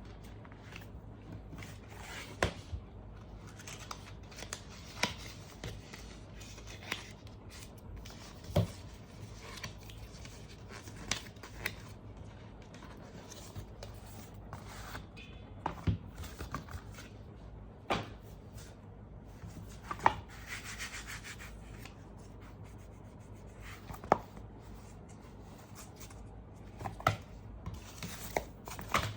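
Hands handling a tablet and its packaging and accessories: irregular sharp taps and clicks every second or two, with rubbing and a brief rustle of packaging about two-thirds of the way through, over a low steady hum.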